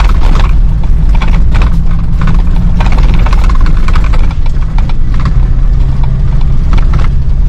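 Car driving, heard inside the cabin: a steady low engine and road drone with irregular knocks and rattles as it goes over a rough, potholed road.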